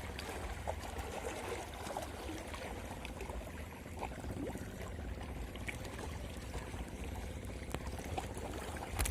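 Water trickling and splashing steadily, with a low rumble underneath. A loud thump near the end.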